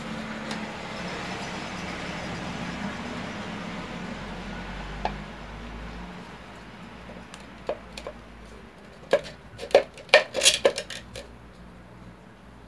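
Plastic housing of an electric citrus juicer handled and fitted back together by hand: a steady rustling of handling, then a run of sharp plastic clicks and knocks, loudest about nine to eleven seconds in.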